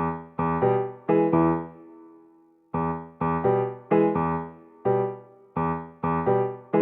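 Background music: electric-piano chords, each struck and left to fade, with a pause of about a second near the middle.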